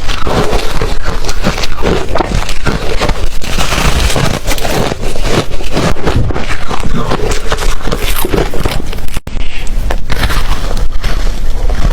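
Ice being bitten and chewed close to the microphone: dense, irregular crunching and crackling. It breaks off abruptly a little past nine seconds, then the crunching resumes.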